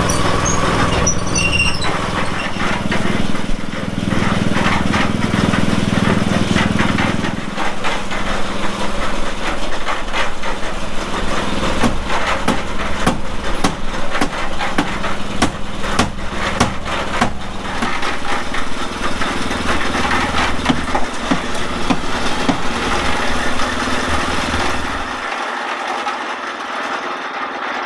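A small engine running steadily on a concrete pour, with frequent knocks, scrapes and clatter of work over it; the engine's low hum cuts off suddenly near the end.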